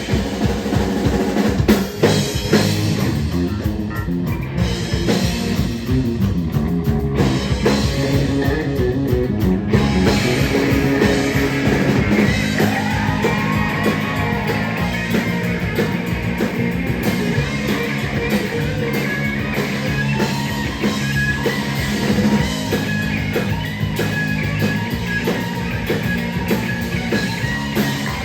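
Rock band playing a song: a drum kit keeps a steady beat under guitar.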